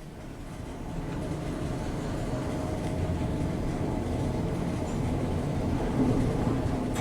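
Express passenger lift car travelling in its shaft: a steady low rumble with a faint hum that builds over the first second or so as the car picks up speed, then holds.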